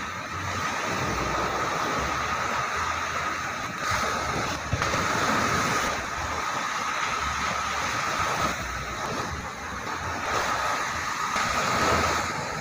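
Ocean surf breaking on a beach, a continuous wash of waves that swells louder about four seconds in and again near the end. Wind buffets the microphone, and a steady thin high tone runs underneath.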